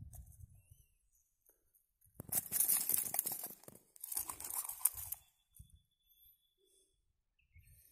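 Dry grass crunching and rustling in two loud bursts, the first about two seconds in and the second just after it, with a few soft thumps afterwards.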